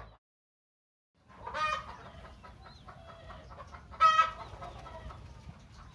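Country chickens clucking, starting after about a second of dead silence, with louder calls about one and a half seconds in and again about four seconds in.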